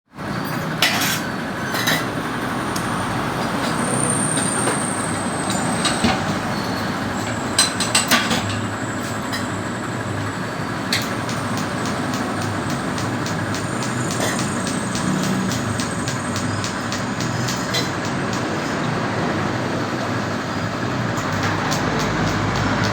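Small engine running steadily through a replacement exhaust elbow and muffler, with a few sharp clicks about 1, 2, 6 and 8 seconds in.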